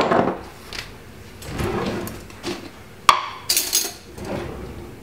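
Glass seasoning jars knocking and clinking on a kitchen worktop as one jar's lid is unscrewed and set down: a few sharp knocks, with a short scraping rasp about three and a half seconds in.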